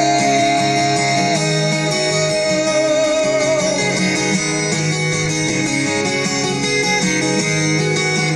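Music: an instrumental passage of a song, guitar over a steady bass line, with a held, wavering melody note that ends about three and a half seconds in.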